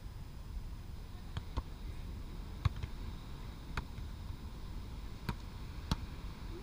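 A series of sharp knocks, about seven, spaced unevenly a second or so apart, over a steady low rumble.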